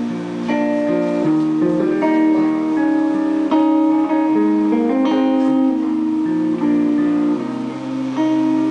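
Live band playing an instrumental break without vocals, led by strummed guitar, with sustained chords changing every second or so.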